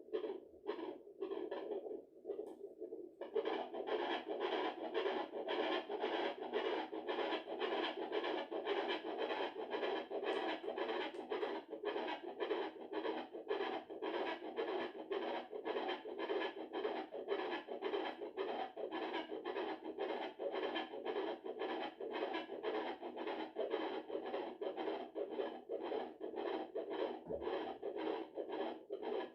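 Fetal doppler's whooshing heartbeat signal, a fast pulse of about two and a half beats a second, the rate of the baby's heart. The signal fades briefly about two seconds in, then comes back strong and steady.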